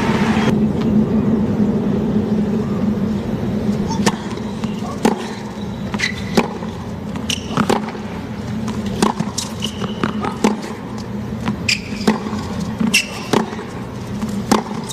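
Tennis rally on a hard court: racket strikes on the ball and ball bounces, about one a second, starting about four seconds in, over the steady murmur of a stadium crowd.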